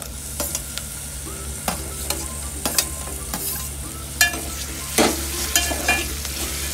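A slotted metal spoon stirring onions and freshly added chopped tomatoes frying in oil in a metal pot: the oil sizzles steadily while the spoon scrapes and clanks against the pot, with louder knocks about four and five seconds in.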